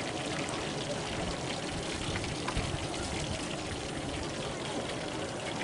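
Hot oil sizzling steadily in a deep-fry pan, with fine scattered crackles: fish frying.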